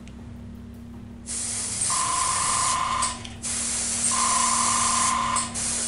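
Paint being sprayed onto a miniature in two hissing bursts of about two seconds each, with a whistling tone in each burst and a low steady hum underneath.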